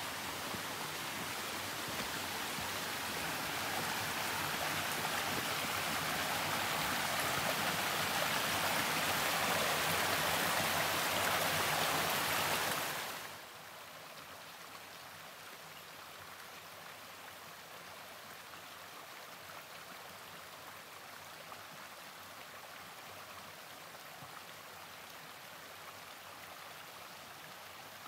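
Rushing stream water. It grows steadily louder, then drops abruptly about halfway through to a quieter, steady stream sound.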